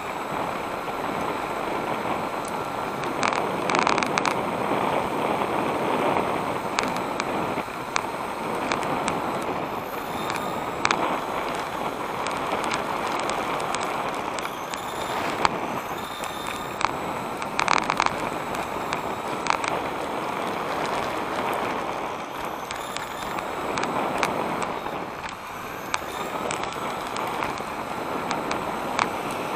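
Electric 1/10-scale RC touring car heard from its own onboard camera: a Hobbywing V10 21.5T brushless motor and gear drive whining, the pitch rising and falling with speed, over steady tyre noise on asphalt. Sharp knocks from bumps come now and then.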